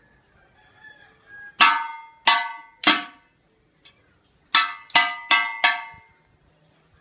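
A struck object ringing with a bright, bell-like tone: three sharp hits about two thirds of a second apart, a pause, then four quicker hits, each ringing out and fading.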